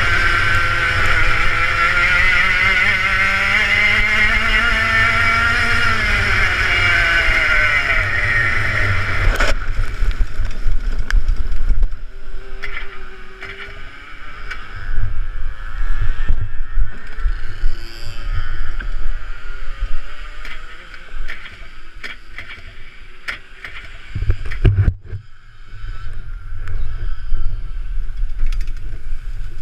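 Racing kart's two-stroke engine running hard for about ten seconds, its pitch rising and falling with the throttle. It then drops away suddenly as the kart goes off onto the wet grass. After that the engine runs low under a string of knocks and bangs as the kart jolts across the grass, with a hard thump about 25 seconds in.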